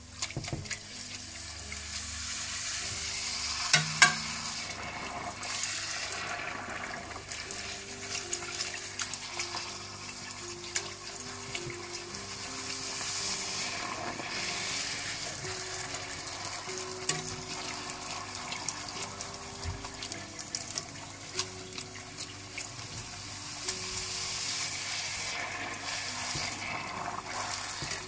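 Golgappa puris deep-frying in hot oil: a steady sizzling hiss full of small crackles, with two sharp clicks about four seconds in. Quiet background music with a simple melody runs underneath.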